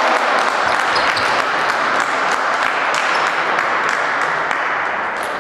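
Spectators clapping after a point in a table tennis match, a dense patter of hand claps that slowly dies down.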